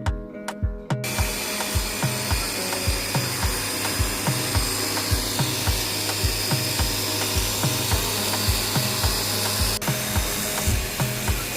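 Background music with a steady thumping beat, joined about a second in by a continuous even hiss that starts suddenly and holds steady.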